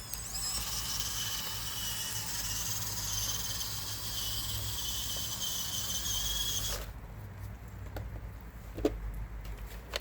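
Radio-controlled Huina 1554 bulldozer's small electric drive motors and gearing running with a high whine, which cuts off about seven seconds in. A few faint clicks follow.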